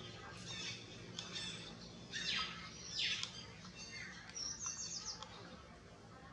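Birds chirping: a string of quick high chirps and short trills, loudest in two downward-sweeping calls about two and three seconds in.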